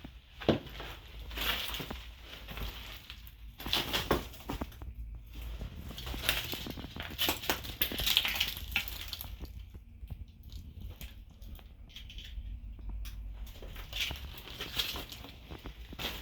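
Footsteps crunching and crackling underfoot, in uneven clusters of steps with short pauses between them.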